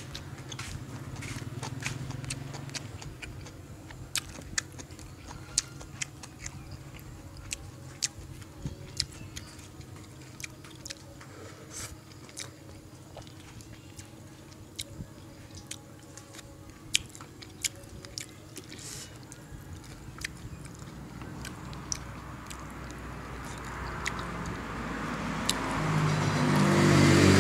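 Close-up chewing and lip smacking, heard as a string of short sharp clicks. Over the last few seconds a motor vehicle approaches and grows louder, drowning it out.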